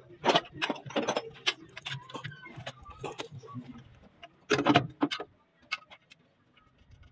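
Irregular metallic clicks and clinks of hand tools and fittings being worked on a Fuso 8DC9 diesel engine's injection pump and fuel lines, with a quick cluster of knocks about four and a half seconds in and quiet near the end.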